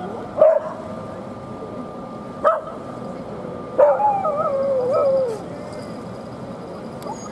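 An animal calling: a few short cries, then a longer wavering cry, about four seconds in, that falls in pitch.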